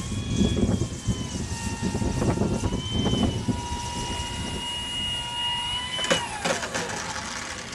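Electric motor and propeller of a radio-controlled gyrocopter whining steadily in flight, shifting slightly in pitch, then dropping and cutting off about six seconds in, with a few knocks as the model touches down. A low rumble of wind on the microphone runs underneath.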